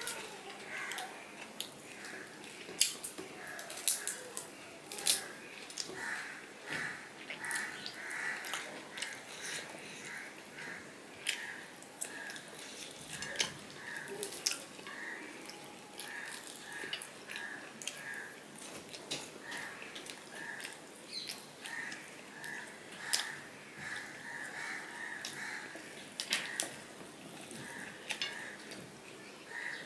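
Close-up eating sounds of fried hilsa fish and rice eaten by hand: wet chewing, lip smacks and sharp clicks as fingers pick flesh off the bones. Through most of it there is also a run of short squeaks at one pitch, repeated two or three times a second.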